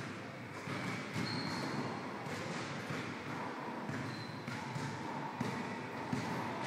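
Basketballs bouncing on a hard indoor gym floor, a series of irregular thuds.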